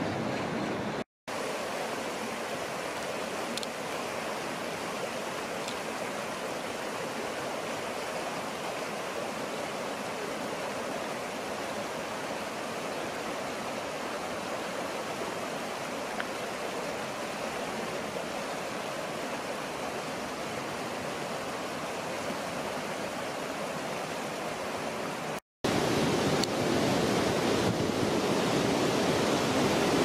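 Shallow stream water flowing, a steady rush. It cuts out briefly twice and is louder for the last few seconds.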